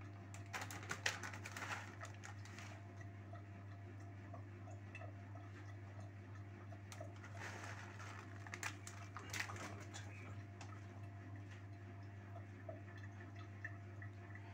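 Light rustling and crackling of grated cheese being shaken from a plastic bag and spread by hand over a pizza, in two bursts: about half a second in and again about seven seconds in. A steady low hum lies underneath.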